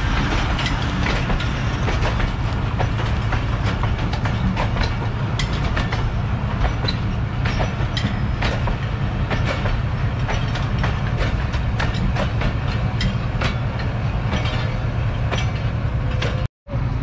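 Diesel locomotive engine running steadily at the platform, a constant low hum, with scattered sharp clicks and clanks.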